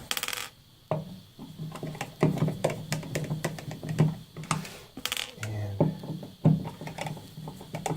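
Irregular clicking and light knocking of hand tools and hardware being handled.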